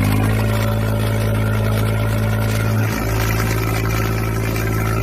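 Engine idling steadily with a deep, even hum, like a laid-in vehicle sound effect.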